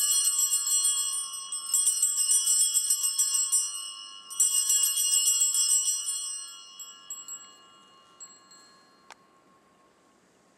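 Brass altar bells (Sanctus bells, a cluster of small bells on one handle) shaken in three swift rings about two and a half seconds apart, each a rapid jingle that rings on, the last fading out over a few seconds. The three rings mark the elevation of the chalice at the consecration.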